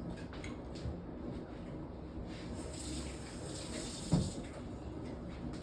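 A little water poured into a cooking pot for steaming vegetables: a hissing splash for a second or two midway, followed by a short knock.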